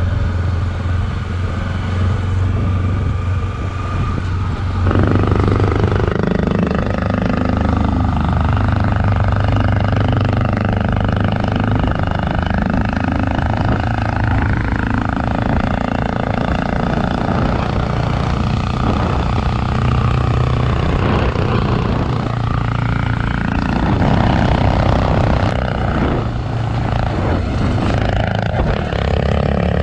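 Motorcycle engine running while riding, its note rising and falling with engine speed, and a step up in loudness about five seconds in.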